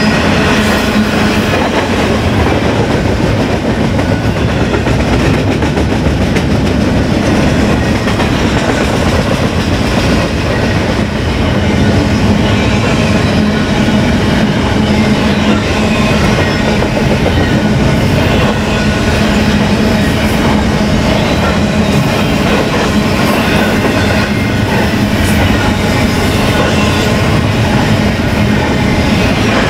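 BNSF freight train rolling past with a steady, loud rumble of cars and wheels clattering on the rails.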